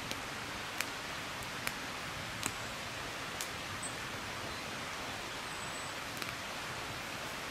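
Steady, even outdoor hiss of a fir wood, with sharp clicks about once a second during the first few seconds and a couple of brief, faint high peeps.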